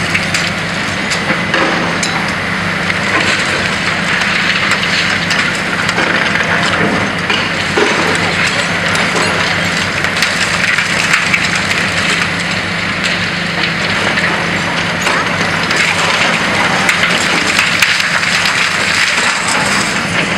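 Long-reach demolition excavator's hydraulic grab crunching into a concrete building. Concrete and rubble crack and clatter nonstop over the machine's steady engine drone.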